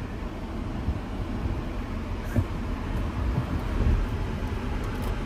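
Low, steady rumble of a BMW X7 driving slowly, heard from inside the cabin, with a light knock about two and a half seconds in.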